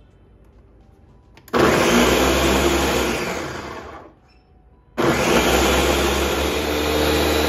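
Electric countertop blender pulsed twice, blending a peeled orange into juice. The motor starts suddenly, runs for about two seconds and winds down, then starts again about five seconds in and keeps running.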